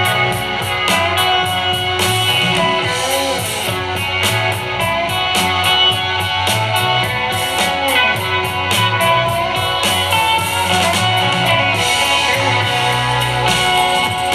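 Guitar-led music with a steady beat, played on a Bose SoundLink Micro Bluetooth speaker as a sound test.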